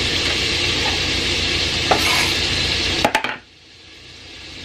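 Sausage sizzling in a cast iron skillet, with a few knife knocks on a wooden cutting board. About three seconds in, the sizzle drops away suddenly, then slowly comes back.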